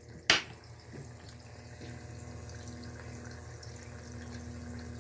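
An antique snap switch clicks on, then a 3-foot Jacob's ladder starts up with a steady electrical hiss and hum that slowly grows a little louder. The arc is still struggling to climb, not yet hot enough to carry the spark.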